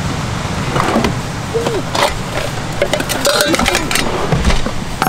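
Plates clattering as a wooden camp-kitchen drawer is opened and a plate is taken out: a few short knocks and clinks over a steady low rumble.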